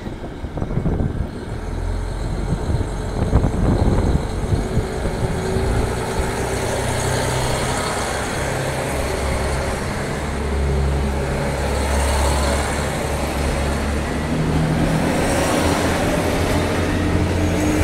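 Diesel limited express train's engines running and pulling the train away from the platform, a steady low engine hum that grows and shifts in pitch from about six seconds in, with rising wheel and running noise.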